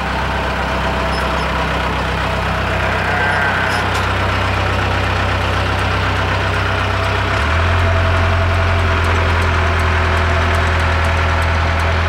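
Heavy construction machine's diesel engine running steadily with a deep hum; about seven and a half seconds in its note shifts and it grows slightly louder.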